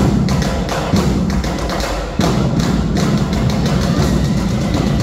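Drum-heavy dance music played loudly for a majorette routine, a fast, steady beat of many strokes a second over deep bass, which drops out briefly about two seconds in and comes back.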